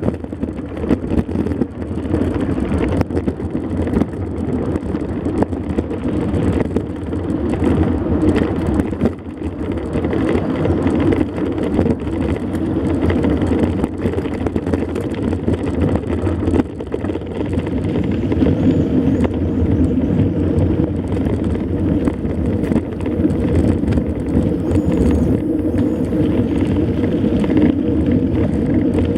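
Mountain bike riding over a rough dirt road, tyres on sand and stones with steady rattling and knocking from the bike, and wind buffeting the microphone.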